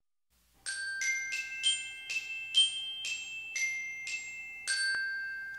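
Intro jingle of about ten bright, chiming struck notes in a quick melody, each ringing briefly. The last note rings on and slowly fades.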